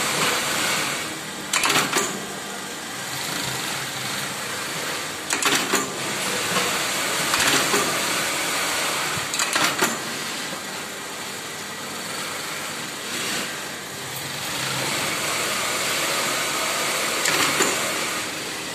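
Electric shoe eyelet-setting machine running steadily, with short bursts of rapid metallic clacking every few seconds as eyelets are set into shoe uppers.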